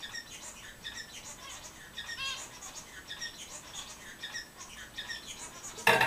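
Bengalese finch singing a run of short, high chirping notes, with a quick warbling trill about two seconds in. Just before the end there is a loud bump as the camera is swung round.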